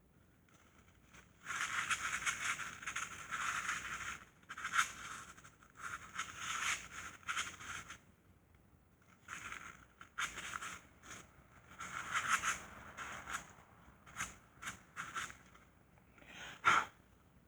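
Scraping by hand on the transmission casing, in several bursts of a second or two with short pauses between, and a sharp click near the end.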